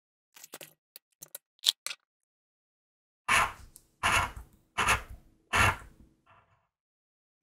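Scratching the coating off an instant lottery scratch card: a few light scratches and taps in the first two seconds, then four firm scratch strokes about three-quarters of a second apart.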